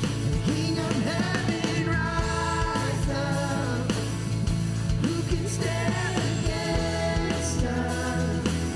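A worship band plays a song with sustained chords, bass notes and a steady drum beat, and voices sing along.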